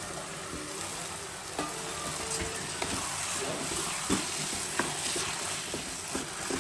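Basmati rice and vegetables sizzling in hot oil and masala while a wooden spatula stirs them around the pan, with a few light knocks and scrapes of the spatula against the pan.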